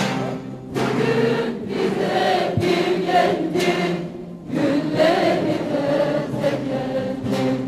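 Large choir singing a slow Turkish Alevi deyiş, with a massed ensemble of bağlamas (long-necked saz lutes) playing along.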